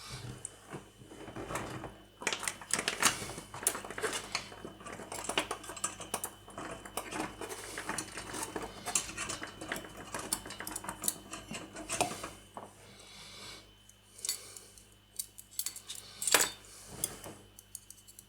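Irregular light clicking and clattering of small plastic model-kit parts and tools being handled and fitted together, with one sharper click near the end.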